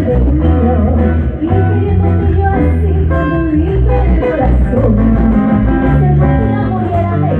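Live band music with guitar, bass guitar and percussion, and a woman singing, played loud over a stage PA.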